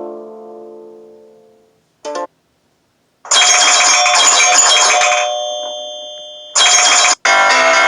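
iPhone ringtones played through a JBL Flip 3 Bluetooth speaker. A chime dies away, a short blip sounds about two seconds in, then a bright, many-toned chiming ringtone starts a little past three seconds. Near the end it fades, cuts off and restarts twice.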